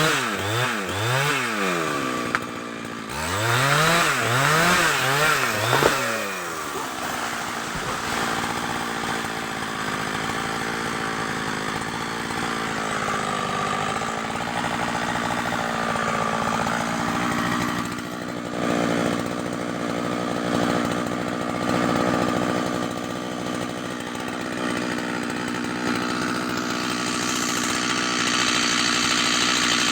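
A two-stroke chainsaw is revved up and down in quick blips, about two a second, for the first six seconds. It then runs steadily at speed for the rest, the pitch wavering slightly as it cuts into kapok (randu) wood.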